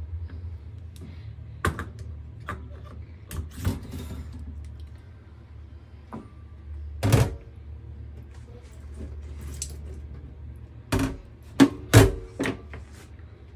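Irregular clicks and knocks of an aluminium ice ball press and its parts being handled and set down on a wire rack, with a quick run of knocks near the end, over a steady low hum.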